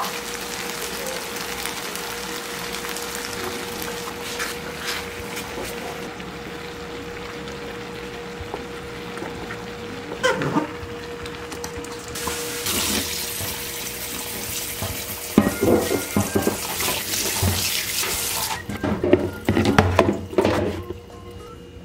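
Water from a kitchen tap running and splashing in a stainless steel sink as cooked spaghetti is drained in a colander, irregular and loudest in the last third. Before it, a steady even hiss of cooking on the gas stove while a sauce is stirred in a frying pan.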